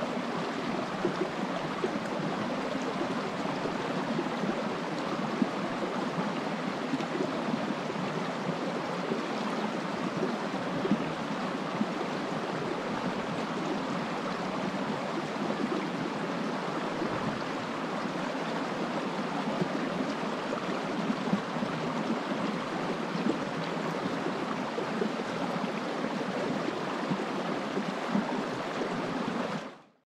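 Shallow forest stream flowing over stones, a steady rush of water with small splashes and gurgles.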